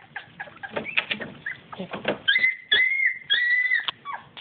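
Young puppies whining and squealing in high-pitched calls: a run of short ones, then a couple of longer, held whines past the middle.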